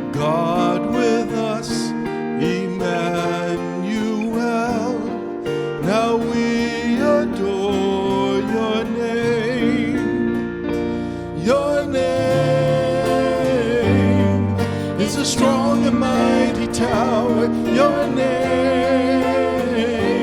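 Contemporary worship song with acoustic guitar accompaniment and a melodic vocal line.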